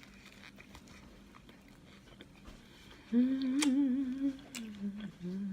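A woman's closed-mouth "mmm" of enjoyment, hummed while chewing a sub sandwich. It starts about three seconds in with a wavering pitch that settles lower, over soft chewing and a few sharp mouth smacks.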